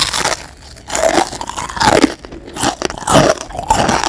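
Crisp-fried battered tofu being bitten and chewed: a series of loud, crackly crunches, about one every half to one second.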